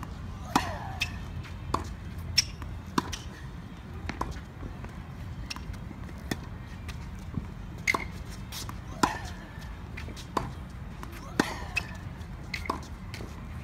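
Tennis ball struck by rackets and bouncing on a hard court during a baseline rally: a steady run of sharp pops, one every half second to a second.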